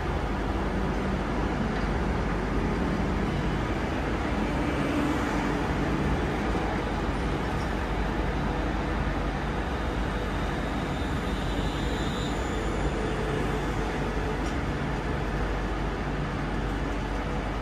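London Northwestern Railway electric multiple units moving slowly along a station platform: steady wheel and running noise on the rails with a faint, even motor hum.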